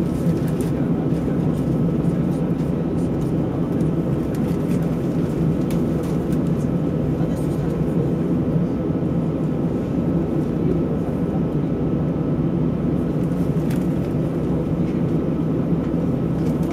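Steady drone of an Airbus A320's jet engines idling, heard inside the cabin, with a low hum and a faint thin whine; the airliner is standing on the ground waiting for takeoff.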